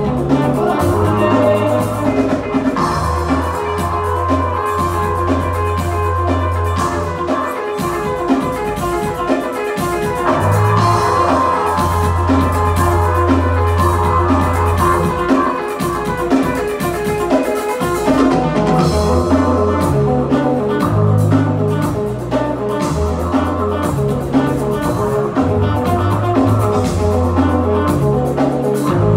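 Live rock band playing, recorded from the crowd: long held low notes on an upright bass under drums and other instruments.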